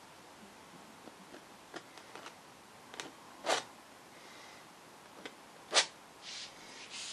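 Palette knife dabbing and scraping thick acrylic paint on a stretched canvas: scattered light taps and scrapes, with two sharper strokes about three and a half and six seconds in, and a brief hiss near the end.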